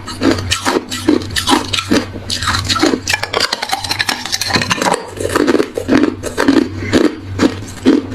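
A person chewing hard ice close to the microphone: rapid, irregular, loud crunches.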